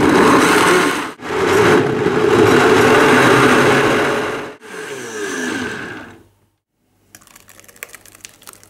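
Vitamix high-power blender running loud and steady as it purées chunks of sweet potato, onion and apple with water into a thick mash, then winding down with a falling pitch between about four and a half and six seconds in. Near the end, faint wet scraping and clicks as the thick purée is poured from the jar into a glass bowl.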